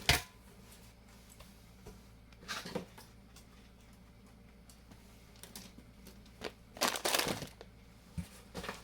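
Food packages being handled while unpacking a box: a sharp knock as an item is set down, then cardboard and packaging rustling and scraping, with a longer rustle about seven seconds in and a small click near the end.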